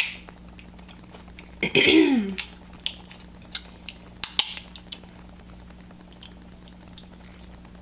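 Crab leg shell being cracked and pulled apart by hand: a run of sharp cracks and snaps, most of them between about two and five seconds in.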